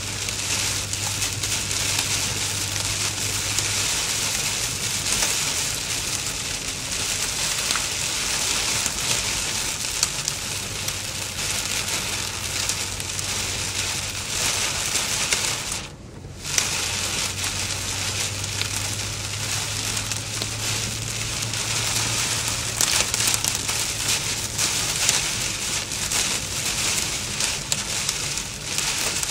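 Torrential rain hitting a car's roof and windshield, heard from inside the moving car as a dense, steady hiss over a low hum from the car. A little past halfway the rain noise cuts out for about a second as the car passes under an overpass, then comes back at once.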